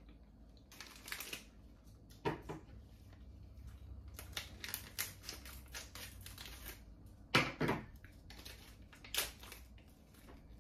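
Plastic snack wrapper crinkling and crackling as it is handled and cut open with scissors, in irregular clicks and rustles with a few louder crackles, the loudest about seven and a half seconds in.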